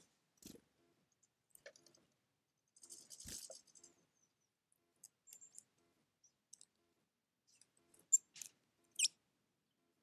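Blue tits moving about on wet pebbles: scattered soft ticks and rustles, a second-long rustle with a light thump about three seconds in, like wings settling as a bird lands, and two sharp high ticks around eight and nine seconds.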